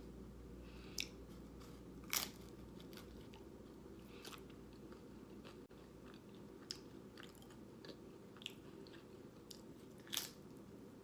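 A person biting and chewing crunchy chips loaded with taco dip, close to the microphone: scattered crisp crunches, the loudest about two seconds in and again near the end, with quieter chewing between.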